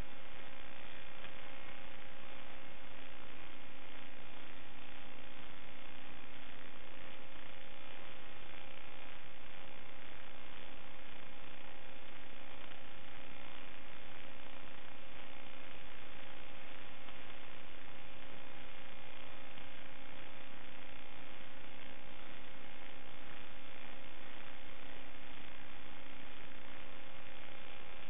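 Steady electrical hum with hiss: a low tone and its overtones that never change. This is the noise of the analog FPV video link's audio channel as recorded by the DVR, not the sound of the quadcopter's motors.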